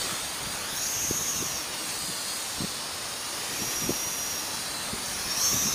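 Steady hiss of strong wind, with the thin high whine of a small quadcopter's motors rising and falling in pitch as it flies.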